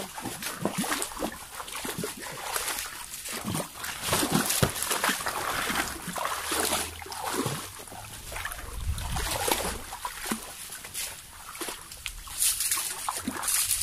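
Feet and hands working through wet mangrove mud and shallow water while searching for clams: irregular squelching, sloshing and splashing.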